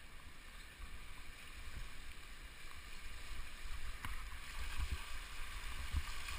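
Shallow mountain stream rushing over stones, heard as a steady hiss, with low rumbling and a few sharp knocks as a mountain bike rolls over rocks and into the water; it grows louder toward the end.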